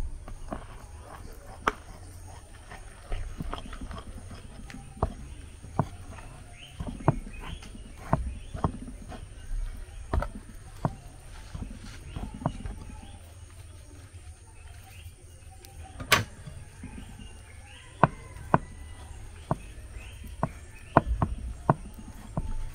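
Spoon stirring flour into mashed plantain in a glass bowl, knocking and scraping against the glass in irregular sharp clicks, with duller thumps of the dough being worked.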